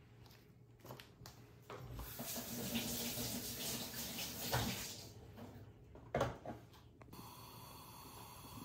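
A kitchen tap runs for about three seconds, starting about two seconds in, with a few light knocks before it and a louder clunk about six seconds in.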